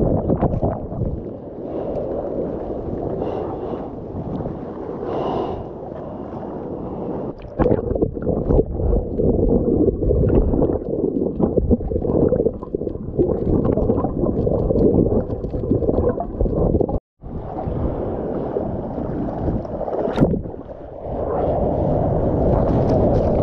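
Muffled churning and gurgling of seawater heard underwater through a GoPro's waterproof housing, with a brief cut-out about seventeen seconds in. Near the end the camera breaks the surface and the sound of splashing water grows clearer.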